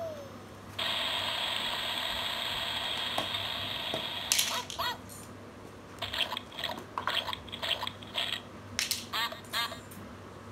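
Children's sound book's small speaker playing a steady rain-shower hiss for about three seconds, set off by its raindrops button. A few seconds later comes a run of short, uneven splashing bursts from its muddy-puddle button.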